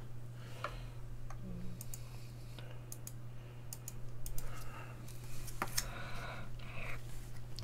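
Scattered light clicks and taps, irregular and close together, over a low steady electrical hum.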